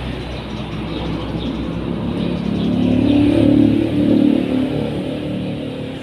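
A motor vehicle passing close by, its low rumble swelling to a peak about halfway through and then fading. Faint chirps of Eurasian tree sparrows over it.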